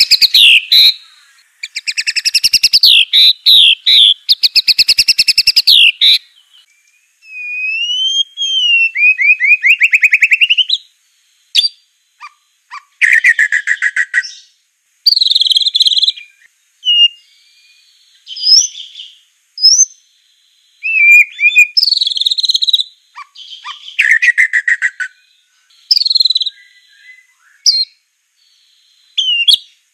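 White-rumped shama (murai batu Aceh) singing. The song opens with about six seconds of loud, rapid rattling trills, followed by clear whistles sliding up and down, then varied short phrases with pauses between them.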